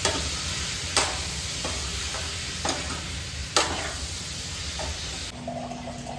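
Raw mango and spices sizzling in hot oil in a pressure cooker while a spoon stirs them. The spoon knocks against the metal pot four times. The sizzling drops off suddenly near the end.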